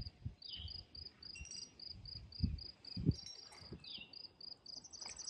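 An insect chirping steadily in a high, even rhythm, about four chirps a second, with two soft low thumps a little past the middle.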